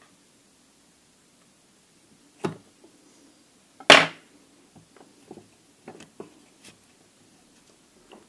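Hand tools being put down and handled on a workbench: a knock about two and a half seconds in, a louder clack about four seconds in, then several light clicks and taps.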